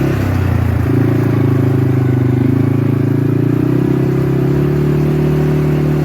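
Motor vehicle engine running steadily at low revs. Its pitch drops just after the start and picks back up about a second in.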